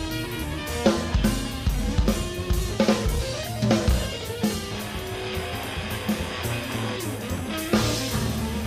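Instrumental small-band music: guitar over drum kit and bass guitar, with sharp drum hits through the first half and again near the end.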